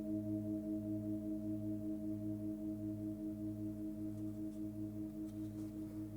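Hand-forged Nepalese singing bowl, 26 cm across with a 107 Hz fundamental, ringing out and slowly fading after a strike. Its deep tone pulses about twice a second over a steady ring of higher overtones.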